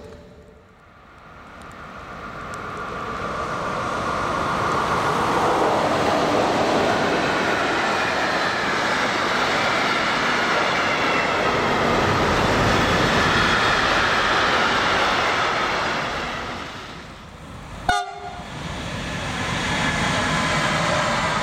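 A long freight train rolling past close by: the noise of wheels on rails builds over the first few seconds to a loud, steady rumble with a high whine above it. About 18 s in it breaks off abruptly and another freight train, hauled by an electric locomotive, is heard rolling past.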